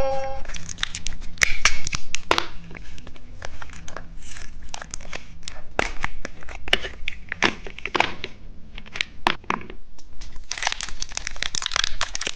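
Plastic candy packaging crinkling and tearing as it is handled and opened, with many irregular small clicks and snaps.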